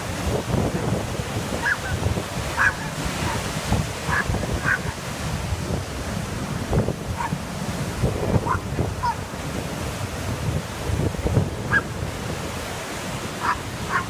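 Big ocean waves breaking and foaming surf washing over rocks and a concrete breakwater, a steady heavy rush with wind buffeting the microphone. Short high-pitched sounds come every second or two.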